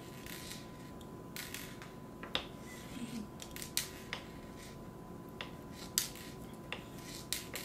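Kitchen knife chopping hard-boiled eggs on a wooden cutting board: irregular light taps and clicks of the blade striking the board.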